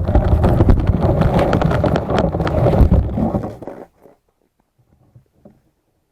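Loud rumbling noise with many crackles and knocks, which cuts off abruptly about four seconds in, leaving near silence with a few faint ticks.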